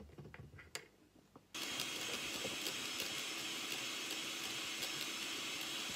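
A few light clicks, then an electric hand mixer switched on about a second and a half in and running steadily, its beaters whipping cream with condensed milk in a plastic jug.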